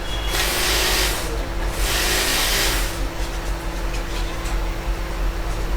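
Cleaning spray hissing onto a freshly soldered phone circuit board in two short bursts, about a second each, over a steady low hum.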